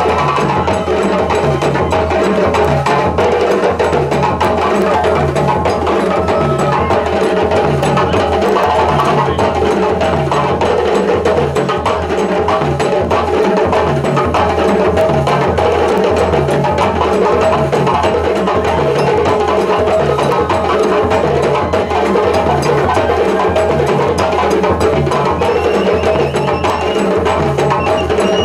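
West African djembe and dunun drum ensemble playing a fast, steady dance rhythm live. A repeating low drum pattern runs under a constant stream of sharp hand strokes.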